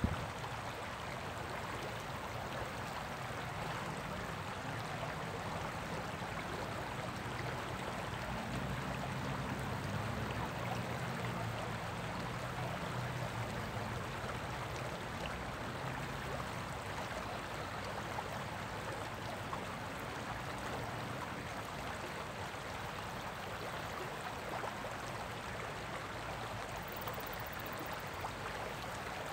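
Shallow river rapids running over rocks: a steady, even rush of flowing water.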